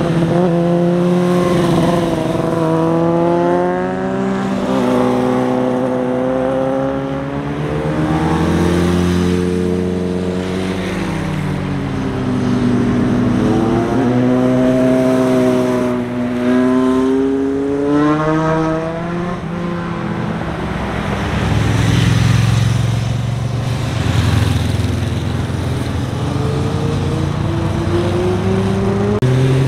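Motorcycles riding through a tight hairpin bend one after another, their engines revving with the pitch repeatedly sinking and then climbing as each rider slows into the bend and accelerates out.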